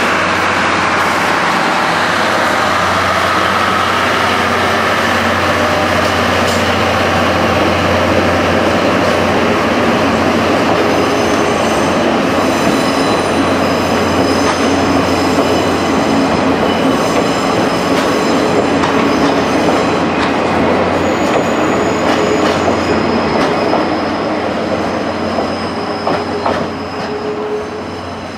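A DD51 diesel locomotive hauling 12-series passenger coaches rolls past: a low engine drone and the noise of the coaches' wheels on the rails. Thin, high wheel squeals set in about halfway through. The sound fades near the end as the last coach moves away.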